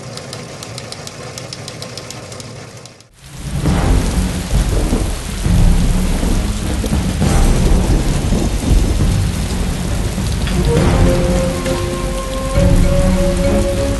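Film intro soundtrack. It opens with a rapid, even ticking, then after a brief drop a dense, low rumbling wash with steady low drones takes over, like a storm. Held musical notes come in about eleven seconds in.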